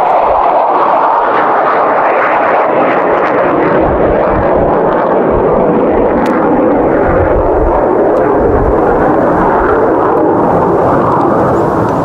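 Dense, steady buzzing of honey bees in the air around an opened hive, with gusts of wind buffeting the microphone from about four seconds in.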